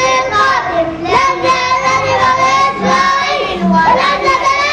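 A small group of young boys singing a slogan song together, loud and in unison, with long held notes.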